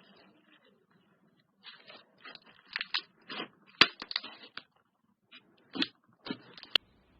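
Slime being squished and worked by hand in irregular short bursts, with a sharp click near the end.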